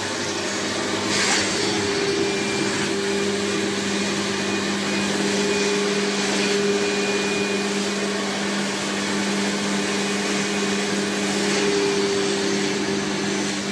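Fakir Deluxe Öko Line 9800S carpet washer's suction motor running with a steady hum as its upholstery nozzle is drawn over wet sofa fabric. Brief louder rushes of air come about a second in, midway and near the end.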